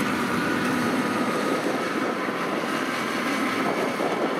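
Yanmar YH850 rice combine harvester running at work, its diesel engine and cutting and threshing machinery making a steady, dense mechanical noise as it cuts ripe rice.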